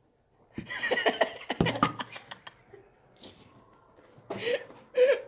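Two men laughing in short, choppy bursts, starting about half a second in and breaking out again near the end.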